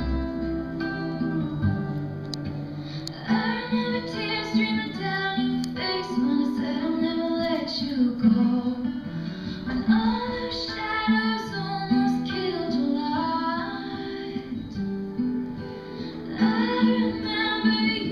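A song: acoustic guitar picking, with a female voice singing over it from about three and a half seconds in.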